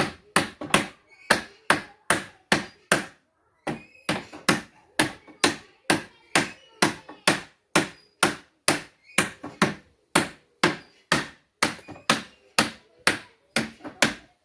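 Hammer striking a wooden pallet plank, a steady run of sharp blows at about two a second with one short pause about three seconds in.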